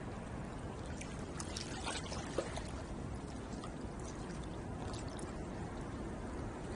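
Water lapping and trickling at the shore, with a few small splashes about two seconds in and one sharp tap soon after.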